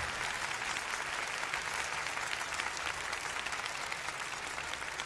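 Concert audience applauding after a song ends, a dense clatter of many hands slowly dying down.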